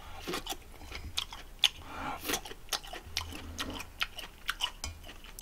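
Close-up chewing of a mouthful of jjolmyeon, chewy cold noodles with raw vegetables, with irregular small wet clicks and crunches from the mouth.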